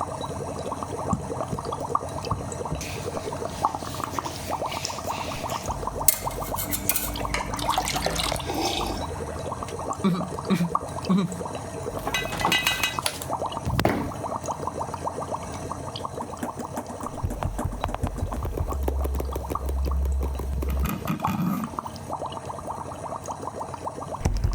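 Hand-made foley sound effects: water sloshing and pouring, mixed with scattered clicks, clinks and small knocks.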